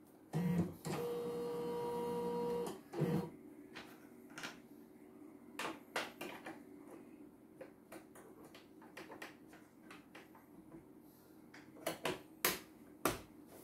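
CNY computerized embroidery machine's motor running steadily for under two seconds, with a knock as it starts and another as it stops. This is followed by scattered light clicks and taps of hands handling the machine's plastic parts, with a few sharper clicks near the end.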